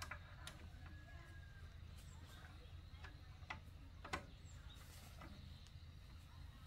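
Faint scattered clicks and light taps, five or six of them with the sharpest about four seconds in, over a low steady hum.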